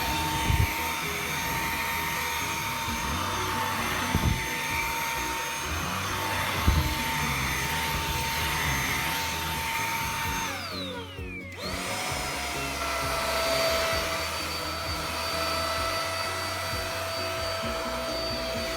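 Xiaomi Mi Handheld 1C cordless stick vacuum running with a steady whine over the rush of suction, with a few short knocks in the first seven seconds. About ten and a half seconds in, the motor winds down with a falling pitch, goes briefly quiet, then spins back up and holds steady at a lower pitch.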